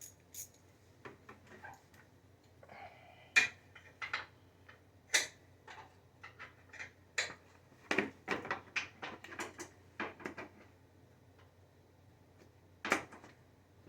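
Irregular metallic clicks and clanks of a hand tool, a 10 mm socket or wrench, being fitted to a bolt on a mower deck cover. A quick run of clicks comes about eight to ten seconds in, and there is a sharp knock near the end. The tool turns out to be the wrong size for the bolt.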